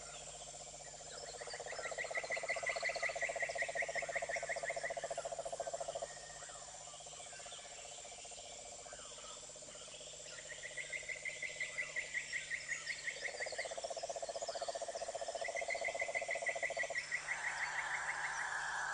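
Trilling animal calls: a low pulsed trill in two long bouts, and a higher, faster pulsed trill that rises and falls in pitch, heard three times.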